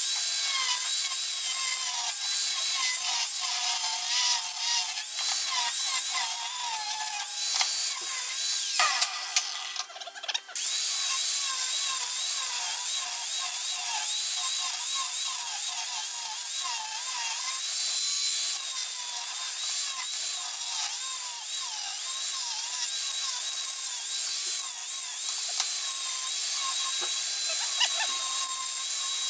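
Handheld power tool, such as a drill, running under changing load, its whine wavering up and down in pitch, with a short break about nine seconds in before it runs on.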